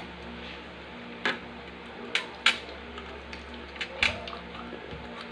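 Cutlery clinking against plates and bowls while eating: about four separate sharp clinks.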